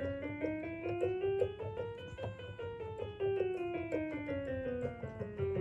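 Piano sound played from a Roland A-300PRO MIDI controller keyboard through the computer: a quick scale of single notes running up, peaking about two seconds in, then running back down. The notes sounding show the keyboard's repaired USB connection is now working.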